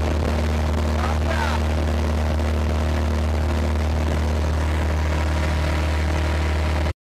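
Motorboat engine running steadily under way, a deep even drone that cuts off suddenly near the end.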